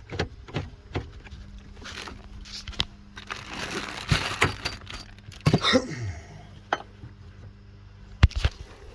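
Irregular clicks and knocks of metal seatbelt hardware and a T50 Torx bolt being handled and started by hand, with a stretch of rustling in the middle and a sharp knock near the end.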